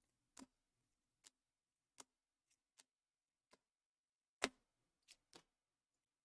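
Faint, irregular small clicks and taps from hands handling a trading card and its packaging, about nine in all, the loudest about four and a half seconds in.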